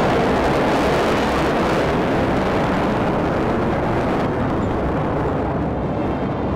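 Jet noise from a Black Eagles T-50B with its single General Electric F404 turbofan as it pulls up steeply overhead: a steady, loud rush whose upper hiss thins out about four seconds in.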